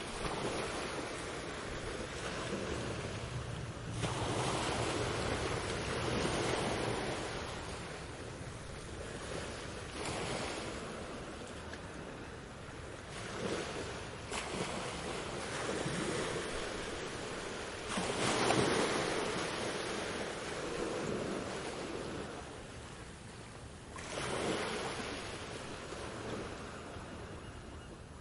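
Sea waves breaking on a beach: surf rushing in, swelling sharply every four to six seconds and washing back between breakers.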